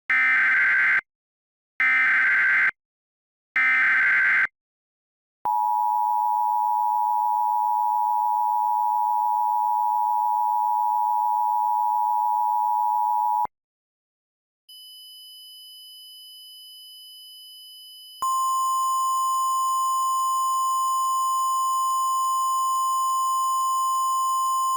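Emergency Alert System tones: three short, buzzy SAME header data bursts, then the two-tone attention signal held for about eight seconds. After a short pause a faint high tone starts, and from about eighteen seconds in a louder steady tone joins it.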